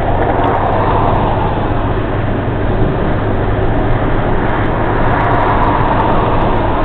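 Road traffic noise: a steady rush of tyres and engines, with a vehicle passing about a second in and another around five seconds in.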